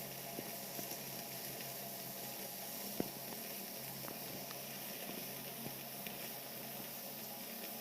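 Chicken tikka cooking in a hot pan: a steady low sizzle with a few faint clicks, one sharper about three seconds in.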